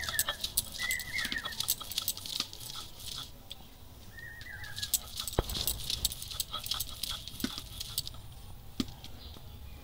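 Stone roller rubbed back and forth over a grinding board, crushing soaked red lentils into a coarse paste: gritty scraping and clicking in two busy spells. A bird chirps briefly a few times in the background.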